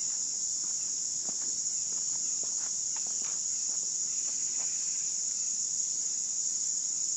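Steady, high-pitched chirring of an insect chorus, with a few faint ticks and scuffs underneath.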